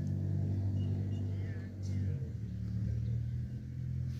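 160 hp Agri Master 1604 4x4 tractor's diesel engine running at a steady low note, which shifts slightly about two seconds in.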